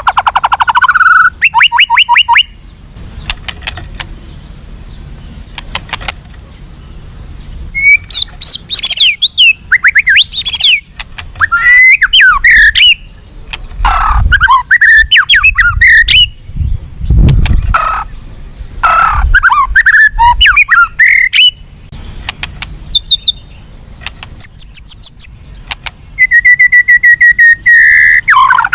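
White-rumped shama (murai batu) singing in loud bursts: fast runs of repeated notes, then varied whistled phrases with gliding notes, broken by short pauses, and a rapid trill near the end.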